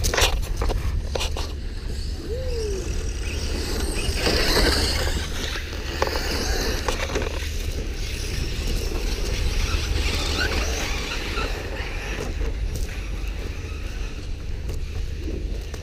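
Radio-controlled cars driving on loose dirt, their motors and tyres making a scraping, whirring noise that grows louder and higher about four seconds in. A steady low rumble runs underneath.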